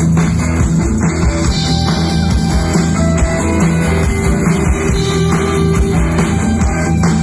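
A rock band playing live, with electric guitars and a drum kit, in a steady loud groove with no singing.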